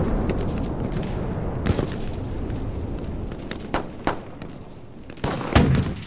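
A low rumbling noise that fades over the first few seconds, with a scattering of sharp knocks or bangs and a louder cluster of bangs near the end.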